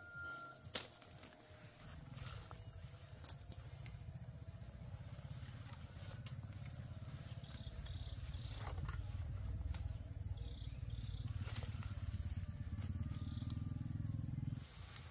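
A low, steady rumble that builds over the first few seconds and cuts off sharply near the end, with a single sharp click just under a second in.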